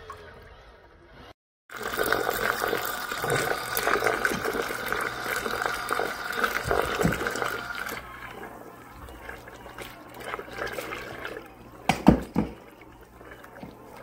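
Danisse portable turbo mini washing machine running submerged in a bucket, churning and swirling the water over a steady low motor hum. The churning is loud for several seconds, then quieter, with a couple of sharp knocks near the end.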